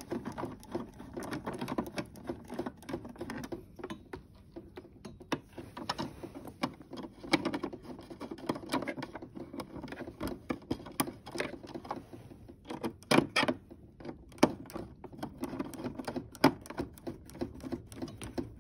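Screws being driven in to fix a machine's display stand: a long run of quick metallic clicks and rattles from the screwdriver and fittings, with a few sharper knocks near the end.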